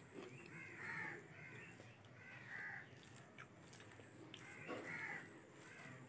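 Crows cawing repeatedly in the background, with the loudest caws about a second in, midway and near the end. Between them come a few faint clicks from fingers mixing rice and curry.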